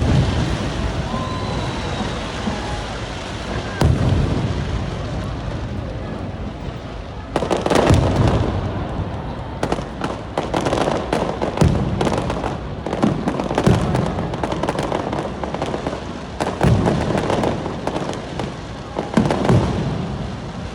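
Aerial fireworks bursting: a few deep booms, then from about seven seconds in a dense run of sharp crackles and pops with more booms every two to three seconds.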